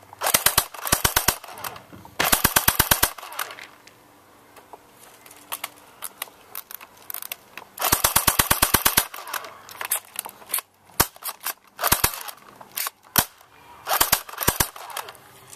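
Airsoft HK MP5 replica firing BBs on full auto in several short bursts of rapid clicks, about a dozen shots a second, with a longer burst about eight seconds in. Scattered single shots and a short string follow near the end.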